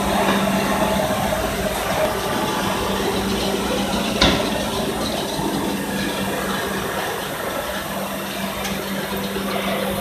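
Cross-flow shredder running: a steady machine hum over continuous mechanical noise, with one sharp knock about four seconds in.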